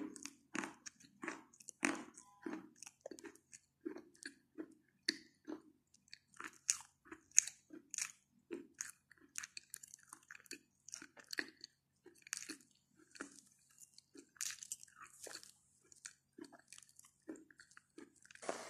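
A person biting and chewing chalk: a long run of short, dry crunches, roughly two a second.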